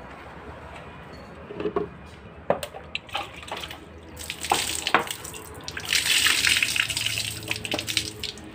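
Rice being rinsed in a metal pot: a few knocks and clinks of the pot, then cloudy rinse water poured off over the hand and splashing down for about four seconds.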